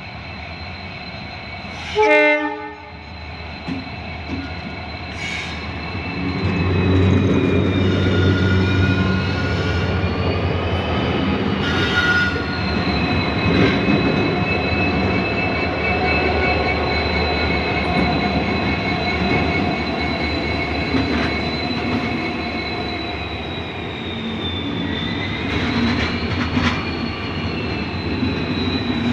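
A short, loud blast of a diesel locomotive's horn about two seconds in. It is followed by the train running by, with a low rumble, rail clatter and a steady high-pitched whine that lasts to the end.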